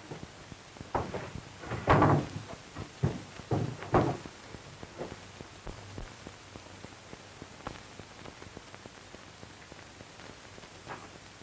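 A few knocks and thumps in the first four seconds, then only the steady hiss of an old film soundtrack.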